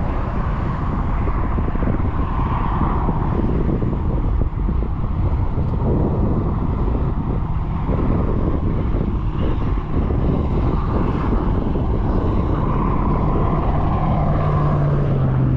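Strong wind buffeting the microphone: a loud, steady rumbling rush with no pause. A low steady hum joins it near the end.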